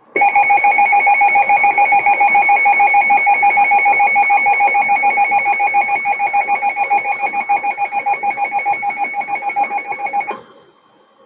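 Weather radio alert tone: a loud, steady tone with a fast, even flutter, held for about ten seconds and then cut off. It sounds ahead of a broadcast severe-weather warning.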